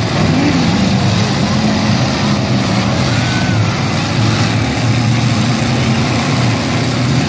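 Engines of several demolition-derby pickup trucks running together in a loud, steady low drone as the trucks drive around the arena.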